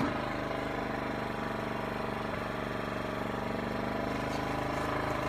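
Portable generator engine running steadily at a constant speed, a continuous even hum.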